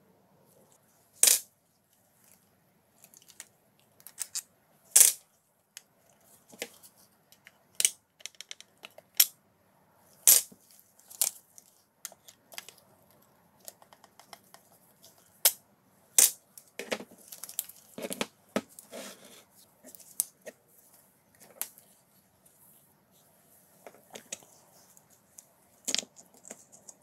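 Irregular sharp clicks and light clatters of hard plastic and metal parts being handled and pried apart on a wooden bench while a DeWalt hammer drill is disassembled, with a busier run of scraping and fiddling about two-thirds of the way through.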